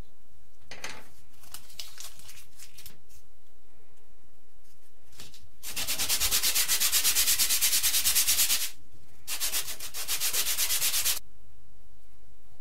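Hand sanding: sandpaper rubbed back and forth over a part in quick, even strokes, about five a second. A few light scrapes come first, then two bursts of strokes, the first about three seconds long and the second shorter.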